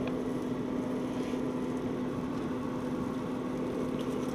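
Pit Boss pellet smoker's fan running with a steady hum during its shutdown cycle, burning off the pellets left in the auger.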